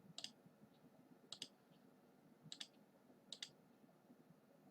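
Computer mouse button clicking: four quick double-clicks about a second apart, faint.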